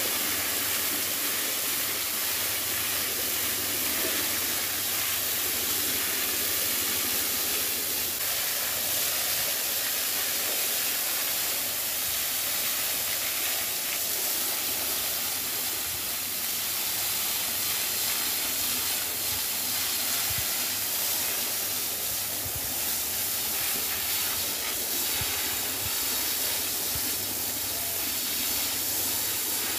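Steady hiss of a water jet from a hose spraying onto a cow's back and splashing off its hide onto the wet floor.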